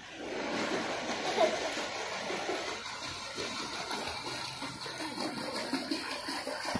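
Water splashing and churning as a child moves her arms through a shallow swimming pool, a steady rush of splashing.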